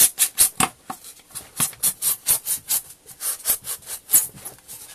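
Utility knife sawing and cutting into a block of styrofoam: a rapid series of short scraping strokes, about four a second.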